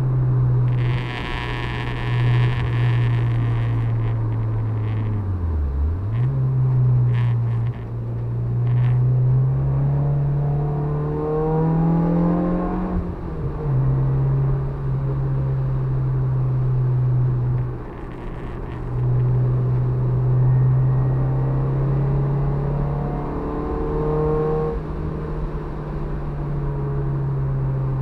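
Honda Civic EG6's B16A2 1.6-litre four-cylinder VTEC engine under load, heard from inside the stripped-out cabin, its revs mostly held steady. They dip briefly twice, then climb for a few seconds and drop sharply at a gear change, with a burst of hiss in the first few seconds.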